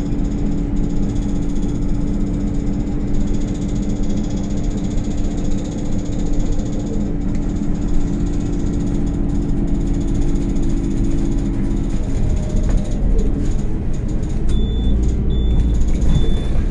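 Anadolu Isuzu Citibus city bus driving, heard from the driver's cab: steady engine and drivetrain noise with a steady whine that stops about two-thirds of the way through, after which the engine pitch shifts. Near the end a high beep starts repeating.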